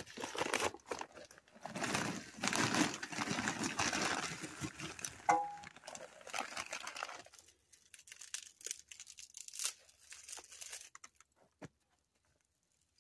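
Bag of charcoal briquettes crinkling as it is handled and tipped, with briquettes pouring and clattering into the fire pit. After that comes a stretch of fainter rustles and small ticks as dry twigs are handled for kindling.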